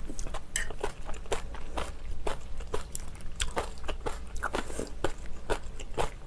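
Close-miked chewing of a mouthful of kimchi and stew: crisp crunches and wet mouth clicks, irregular, a few a second.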